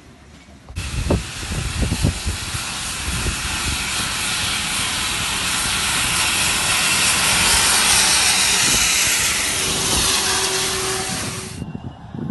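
Steam locomotive letting off steam: a loud, continuous hiss that starts suddenly, builds to a peak and cuts off sharply near the end. A few heavy low chuffs sound in its first seconds.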